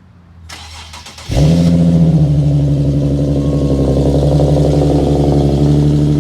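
Infiniti Q50 cold start through a newly fitted Rev9 aftermarket axle-back exhaust: the starter cranks briefly, the engine catches about a second in with a sudden loud flare, then settles into a steady idle.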